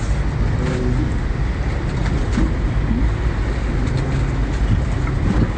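Steady low rumble of harbour background noise, with no speech.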